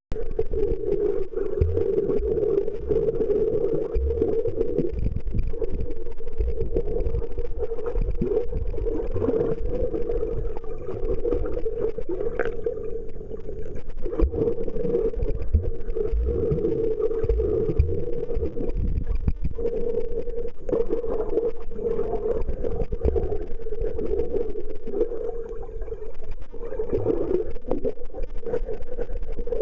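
Muffled underwater sound picked up by a submerged camera: a steady drone with irregular low rumbles and knocks from the moving water.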